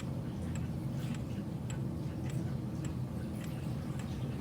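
Early-1900s Gustav Becker wall clock movement ticking on a repair stand, an even tick about twice a second over a low steady hum. The movement has been cleaned and set in beat.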